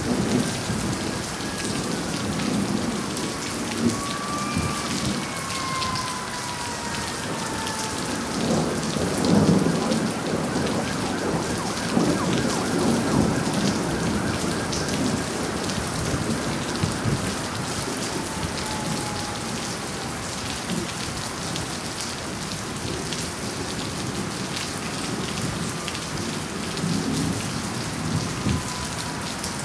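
Heavy rain falling steadily in a severe thunderstorm, with rolls of thunder rumbling through it, the loudest about nine seconds in and another a few seconds later.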